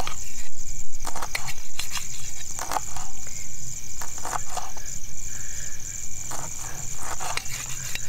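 A pack of jackals howling faintly in the distance over a steady high drone of crickets, with scattered close clicks and knocks.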